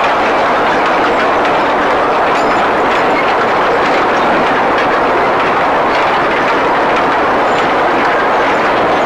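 A string of empty sugarcane wagons on a 762 mm narrow-gauge sugar railway rolling steadily past. The wheels on the rails and the loose wagon bodies make a continuous rumble and rattle, with faint clicks over the rail joints.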